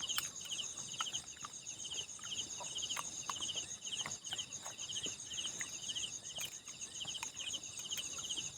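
Night insect chorus: crickets trilling steadily, one pulsed chirp repeating about twice a second over a continuous high buzz, with faint scattered clicks.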